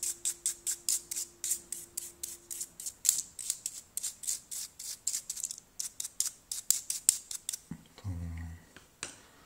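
Small stiff-bristled brush scrubbing grime out of the opened housing of a Cat S60 phone, in quick back-and-forth scratchy strokes about four or five a second. The strokes pause briefly in the middle and stop near the end.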